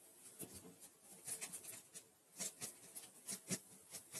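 Stiff plastic bristles of a nail brush scratching and dabbing over miniature french fries on paper, a run of faint, short, uneven strokes that come closer together in the second half.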